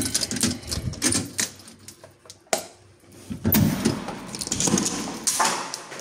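A key turning in a door lock: a quick run of metallic clicks with keys jangling over the first couple of seconds, then a single sharp click about two and a half seconds in, followed by a longer rustling stretch.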